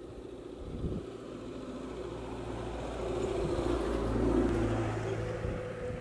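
A motor vehicle passing: engine rumble and road noise swell to a peak about four seconds in, then fade.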